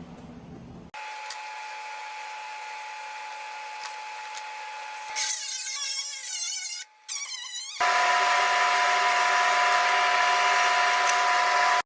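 Power tools whining on truck body metal in a run of abruptly cut clips of rust-patch repair work. A steady whine gives way about five seconds in to a wavering, warbling pitch, then a louder steady whine from about eight seconds in.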